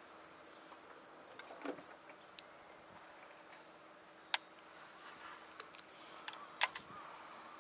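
Quiet open-air background broken by a few sharp clicks of a baitcasting reel being worked as a lure is pitched. One click comes about four seconds in and a close pair follows near six and a half seconds.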